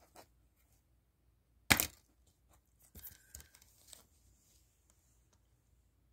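Plastic Blu-ray case snapped open with one loud click a little under two seconds in, followed by a second or so of softer clicks and rattles as the open case is handled.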